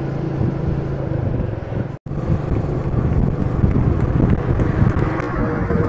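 Royal Enfield Meteor 350's single-cylinder engine running at steady cruising speed on the highway, with wind rumbling on the microphone. The sound drops out completely for an instant about two seconds in, then comes back as a rougher rumble.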